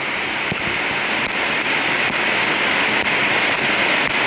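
Steady rush of a jungle waterfall together with heavy rain, an even hiss with no change.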